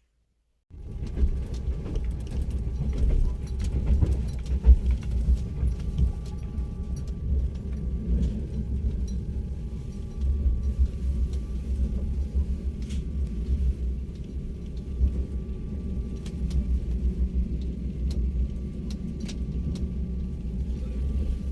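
Passenger train running, heard from inside a compartment: a steady low rumble with faint steady tones and scattered clicks and rattles, starting abruptly about a second in.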